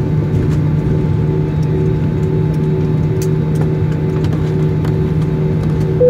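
Cabin noise of a jet airliner rolling down the runway after landing: a steady engine hum with a drone that throbs in a regular beat, and faint clicks and rattles. A single clear tone starts right at the very end.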